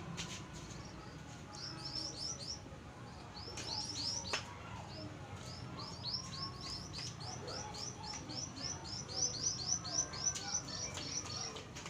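A small bird chirping in quick runs of short, high notes, several a second, more steadily in the second half. A few faint clicks are heard along with it.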